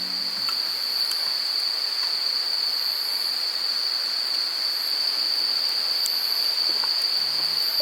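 Insects, likely crickets, trilling steadily on one high, unbroken note over a soft hiss, with a few faint ticks.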